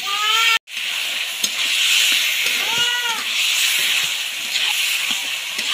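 Onions and goat skin pieces sizzling in hot oil in an iron kadhai while a metal ladle stirs and scrapes them, giving a steady hiss.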